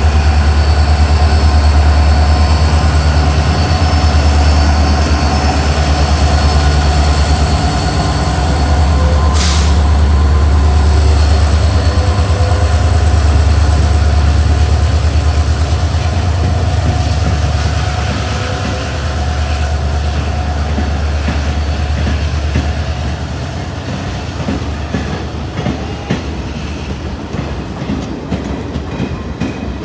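Indian Railways diesel locomotive hauling an express out of a station, its engine giving a loud, steady low hum. The hum fades after about twenty seconds as the coaches roll past, clicking over the rail joints.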